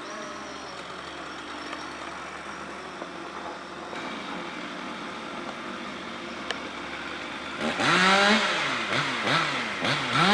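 A Stihl 500i fuel-injected two-stroke chainsaw, ported for extra power, revved hard several times starting near the end, its pitch sweeping up and down before holding steady at full throttle. Before that, a steady low engine hum runs in the background.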